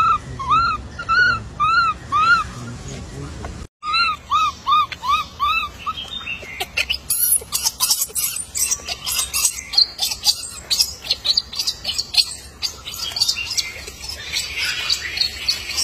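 Infant macaque giving a run of short, arched whimpering cries, about three a second, broken by a brief cut a little before four seconds. From about six seconds on, a busy spell of sharp clicks and chirps takes over.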